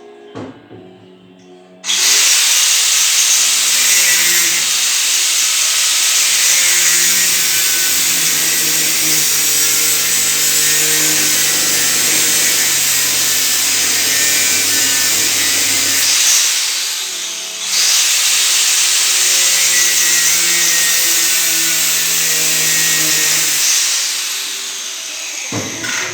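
A power tool running loud and steady in two long runs, with a short stop about two-thirds of the way through.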